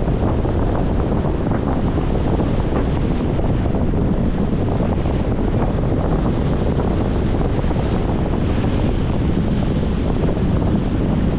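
Wind buffeting the microphone in a steady low rumble, over the wash of choppy lake water slapping against a concrete shoreline wall.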